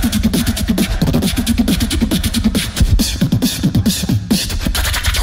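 Solo beatboxing through a handheld stage microphone: a fast, dense run of kick, snare and click sounds under a low bass line that slides up and down in pitch.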